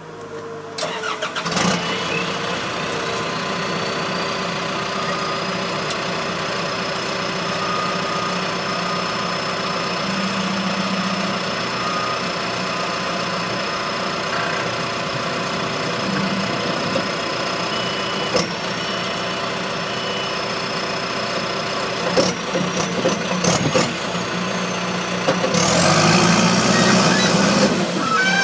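An engine cranks and starts, then runs steadily with a high whine that rises for a couple of seconds and then holds. Near the end a louder machine noise builds as a compact loader drives up.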